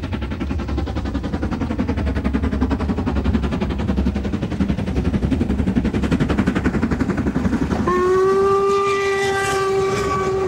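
LMS Stanier Black Five two-cylinder 4-6-0 steam locomotive working a passenger train past at speed, its exhaust beating in a rapid, even rhythm. About eight seconds in it sounds a long, steady blast on its steam whistle.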